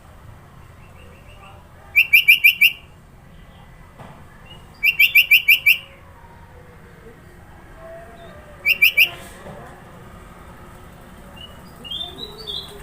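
Sooty-headed bulbul singing: three loud bursts of rapid repeated notes, about five or six notes each, a few seconds apart, then a few softer chirps near the end.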